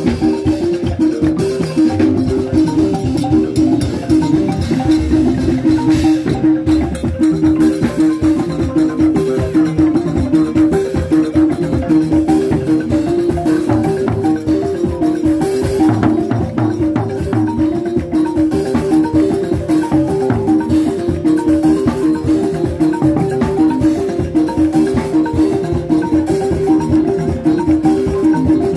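Live balafon music: several wooden-keyed balafons played in fast repeating patterns, with a drum kit and hand drums keeping a steady beat.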